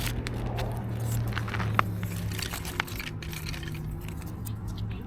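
Dry sticks and leaves being handled and laid for a fire: light clicks, snaps and scrapes, with two sharper clicks a little under two and about three seconds in, over a steady low hum.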